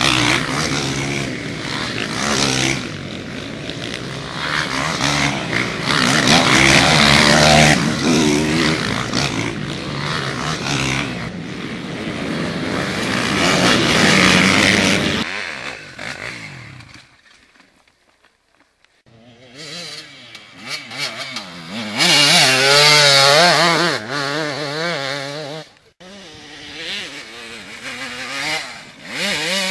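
Dirt bike engines revving hard, rising and falling in pitch over a series of short clips, with a brief drop-out a little over halfway through.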